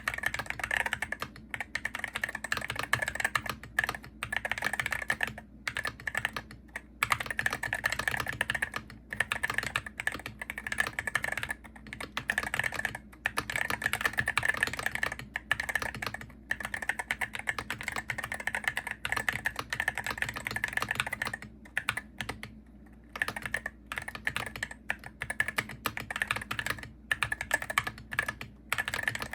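Hero68HE gaming keyboard being typed on quickly and continuously, a rapid irregular patter of key clicks with brief gaps, pausing for about a second a little past two-thirds of the way through.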